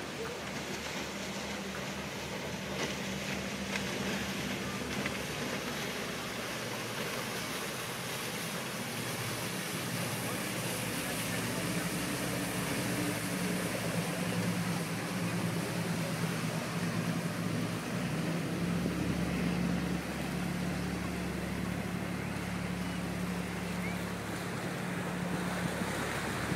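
A fishing boat's inboard engine motoring past at steady speed, its low hum growing louder from about halfway as the boat draws close, over a wash of wind and waves.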